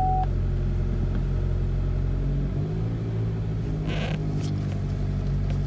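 A 2013 Chevy Malibu engine idles just after start-up, heard from inside the cabin. The idle settles lower about two and a half seconds in, and it runs smoothly on its new ignition coil and spark plugs, no longer misfiring. A steady warning tone cuts off right at the start, and there is a brief rustle around four seconds in.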